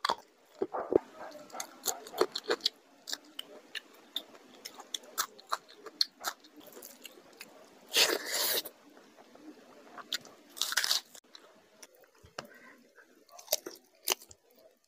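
Close-miked eating of chicken curry and rice by hand: biting, chewing and wet mouth clicks, with two longer, louder bursts about eight and ten and a half seconds in.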